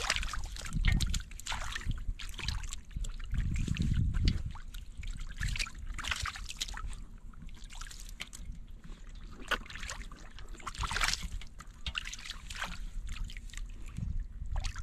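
Shallow water splashing and sloshing in irregular bursts, with trickling, as water is stirred up by hand, with a few low bumps about one and four seconds in.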